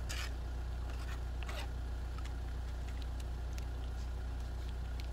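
Steady low drone of an idling engine, with two short scrapes, one near the start and one about a second and a half in, and a few light ticks as a knife works on a plastic cutting board and a sauce packet is handled.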